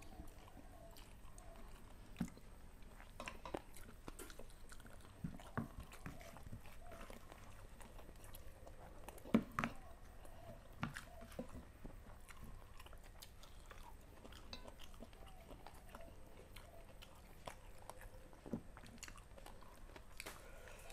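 Close-miked chewing and lip smacks of people eating stir-fried chicken liver and chicken feet with rice by hand, with scattered short clicks; the sharpest comes about nine seconds in.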